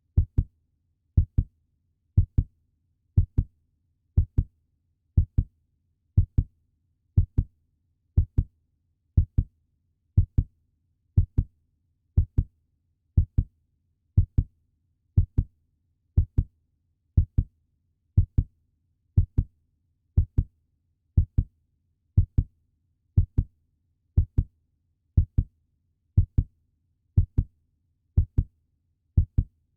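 Puppy heartbeat sound effect: a steady, evenly paced lub-dub, each beat a pair of short, low thumps, repeating about once a second.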